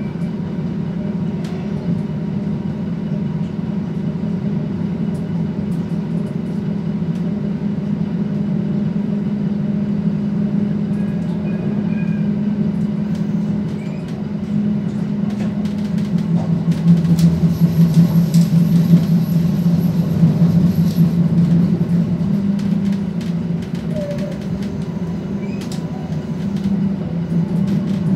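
Inside a Stadler Regio-Shuttle diesel railcar under way: the steady drone of its underfloor diesel engines mixed with wheel and rail noise. It grows louder for a few seconds a little past halfway, then eases back.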